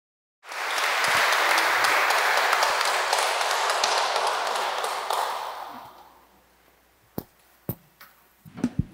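A small audience applauding, the clapping fading out about five to six seconds in; then a few sharp knocks near the end.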